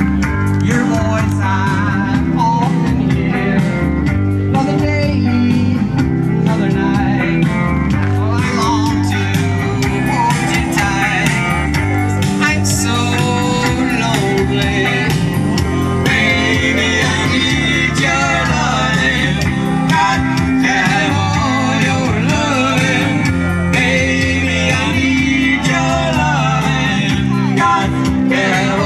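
Background song with singing over guitar and a steady bass line.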